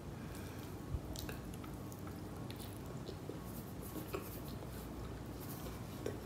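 Chewing a mouthful of biryani rice and chicken masala eaten by hand: soft, wet mouth clicks and squishes, with a sharper tick about a second in.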